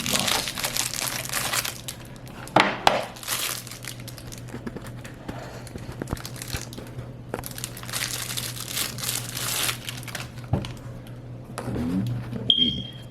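Crinkling and rustling of packaging being handled and unwrapped, in repeated bursts, with a couple of sharp clicks about two and a half seconds in.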